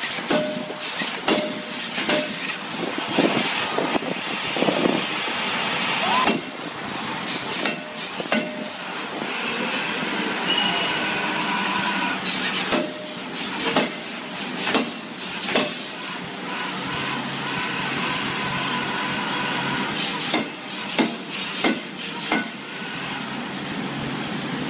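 Power forging hammer striking a red-hot steel bar on its anvil: runs of heavy blows, a few a second, separated by pauses, over the steady noise of the running machinery.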